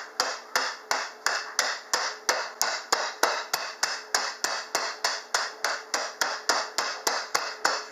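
Wooden rolling pin striking a plastic zip-top bag of pretzel sticks on a countertop, crushing them with a steady run of sharp blows at about three a second.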